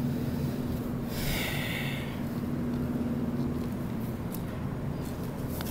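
Steady electrical hum of an arcade claw machine over a low rumble, with one short hiss about a second in.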